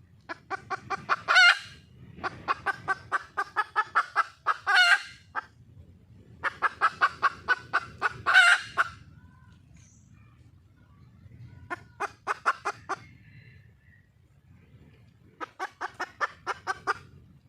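Junglefowl hen calling in five bouts of rapid clucks, about six a second. The first three bouts end in a louder drawn-out squawk. This is a wild hen calling for a mate.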